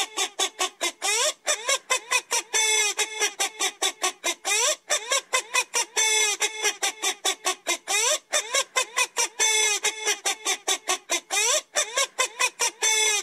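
Rapid, repeated clucking calls, several a second, broken every second or so by a longer squawk that slides up in pitch; the pattern repeats almost exactly throughout.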